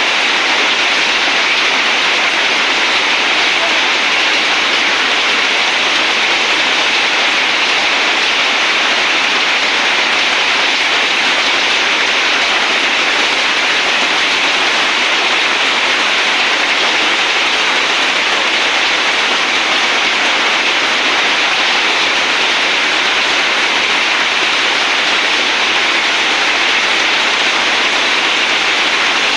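Heavy rain pouring down without a break, a dense, steady hiss.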